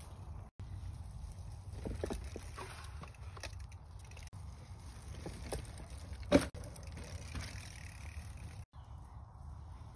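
Mountain bike riding over a dirt trail and a wooden plank ramp: light tyre crunches over soil and leaves, with one sharp knock a little past the middle, the loudest sound, from the bike on the wooden ramp. A low steady rumble runs underneath, and the sound cuts out for an instant twice.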